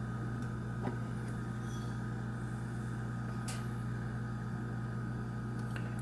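Steady low hum of room tone, with a couple of faint clicks as the hinged glass door of the brass time-lock case is handled and swung open.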